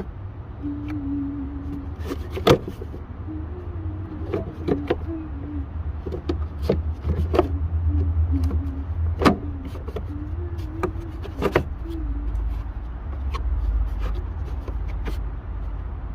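Sharp plastic knocks and clicks, a dozen or so at irregular intervals, as a car's plastic battery cover is fitted back into place over the battery. A steady low rumble runs underneath.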